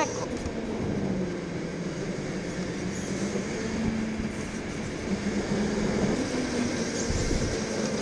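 Go-kart driving laps on an indoor track, heard from on board: a steady motor hum that rises and falls with speed, over tyre and chassis noise. A brief rising squeal right at the start.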